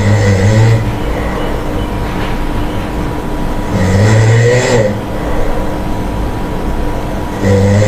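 A monkey snoring: three short, low snores, each under a second and about four seconds apart, over a steady background hum.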